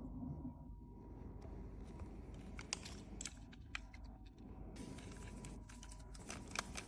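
Faint scattered clicks and light taps of small metal lock parts being handled and fitted, over a low steady room hum.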